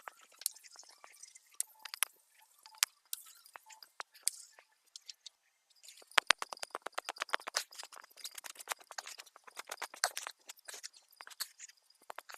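Hand work on wood during furniture repair: rapid small clicks, crackles and scrapes, scattered at first, a short pause about five seconds in, then a dense run of clicks.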